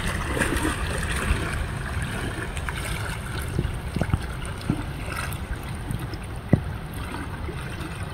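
Wind buffeting the microphone over water lapping, with a few light knocks, the sharpest about six and a half seconds in.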